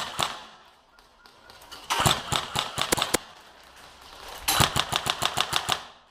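Airsoft electric rifle firing on full auto: two bursts of rapid, sharp shots of a second or more each, about two seconds and four and a half seconds in, after the end of an earlier burst at the very start.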